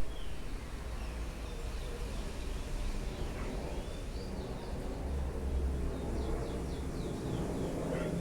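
Birds calling: scattered thin whistled notes sliding up and down, and a quick run of about five falling notes about six seconds in, over a steady low rumble and background hiss.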